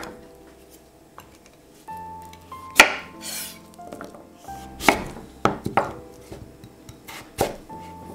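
Large kitchen knife chopping through raw butternut squash and knocking on a wooden cutting board: about five sharp chops at uneven spacing, the loudest a little under three seconds in. Background music plays underneath.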